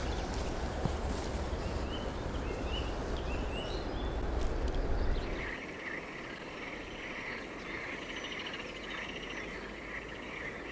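Wind rumbling on the microphone, with short bird chirps over it, until it cuts off about five seconds in. After that a steady chirring of insects goes on.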